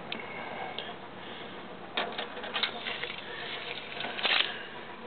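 Handling noise from a steel tape measure held across a metal bracket: a few light clicks and rustles, with a short louder scrape about four seconds in.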